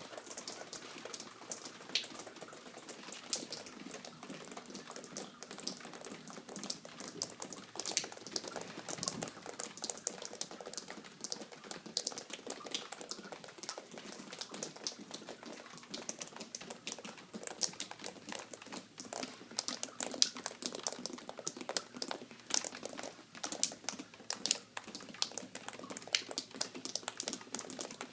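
Water from a leak dripping and pattering in many quick, irregular drips.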